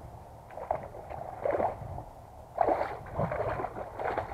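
Hooked bass splashing and thrashing at the water's surface as it is reeled toward the bank, several splashes one after another.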